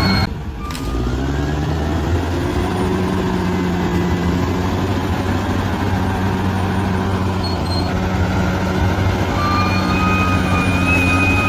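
Bulldozer's diesel engine running steadily at work. The revs rise after a brief dip about a second in, and a higher whine joins near the end.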